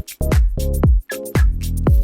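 Upbeat electronic dance background music with a steady beat: punchy bass-drum hits about twice a second and sustained synth chords between them.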